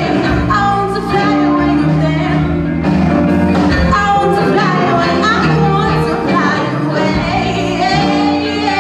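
Live rock band playing: a woman singing lead over electric guitars, bass guitar and drums.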